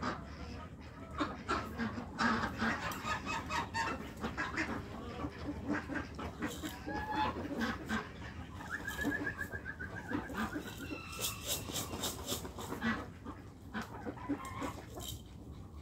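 Mixed flock of chickens and ducks clucking and calling as they crowd round scattered feed, over many short taps and rustles. One longer, wavering call stands out about nine seconds in.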